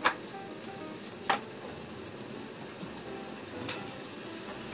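Pork pieces frying in cooking oil in a pan, a steady sizzle as they start to brown. Three sharp clicks, like a utensil against the pan, punctuate it.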